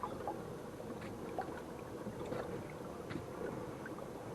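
Hammerhead Kayaks Bull Shark pedal drive turning on the water: a steady low whir with scattered small ticks and splashes. There is no creak, now that a bit of casting flash on the cast-aluminium drive body has been sanded off.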